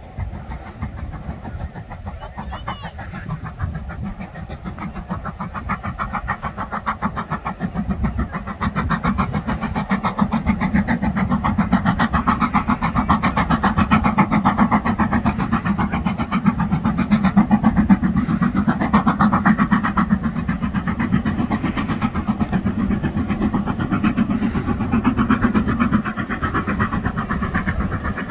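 Black 5 two-cylinder 4-6-0 steam locomotive working hard with a train, its exhaust beating in a steady rhythmic chuff. The sound grows louder about eight seconds in and stays strong.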